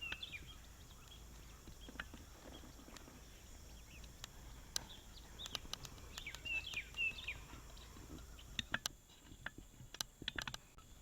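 A songbird giving short chirping calls, once at the start and again about six and a half seconds in, over scattered sharp clicks and crunches of footsteps on rocky ground, bunched near the end.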